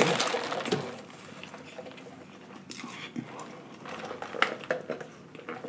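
Close-miked eating sounds: chewing that dies away within the first second, then soft mouth clicks and sips through a straw from a fountain drink cup, with a few sharp clicks about four to five seconds in.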